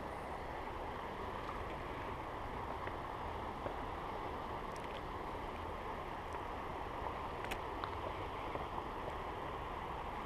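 Steady rush of creek water flowing, with a few faint ticks.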